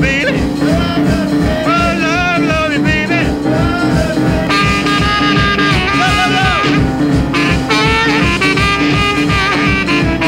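Background music with a steady beat and a wavering melody line with vibrato over it.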